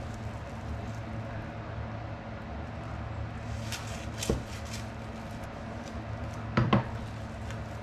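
Light knocks over a steady low hum: one knock about four seconds in and two quick knocks near the end, of household items being handled, such as a cupboard door closing or dishes being set down.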